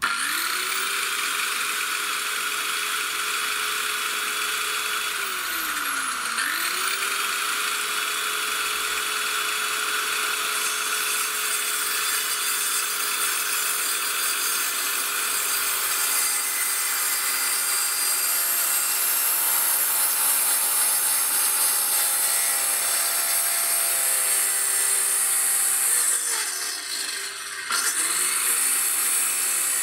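Portable electric circular saw spinning up and cutting across a wide wooden board: a steady high whine of the motor with the rasp of the blade through the wood. About six seconds in the motor winds down and is at once started again, and it does so once more near the end.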